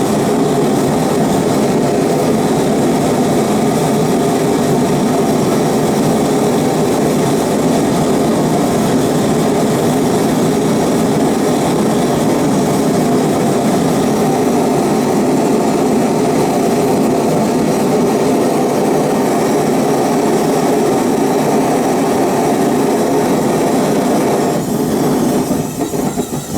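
Single-burner Devil's Forge gas burner running with a steady rushing roar during the first curing firing of a fresh Satanite lining. Near the end the roar wavers and drops off as the burner is turned down.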